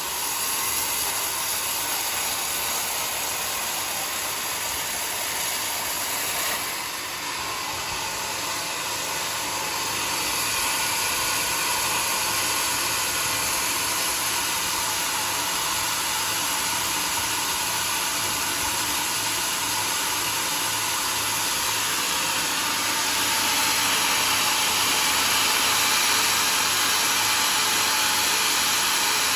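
Homemade sawmill's saw cutting through a log, a steady hiss that dips briefly about seven seconds in and grows louder near the end.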